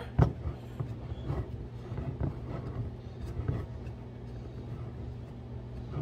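A paddle stirring thick sourdough starter in a glass jar: irregular soft scrapes and knocks against the glass, over a low steady hum.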